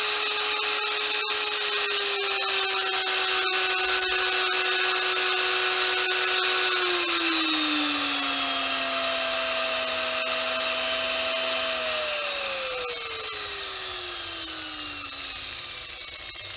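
Corded electric drill's motor running through a dimmer speed control, a steady whine that steps down in pitch about halfway through as the speed is turned down. Near the end it glides lower and quieter as the drill slows right down.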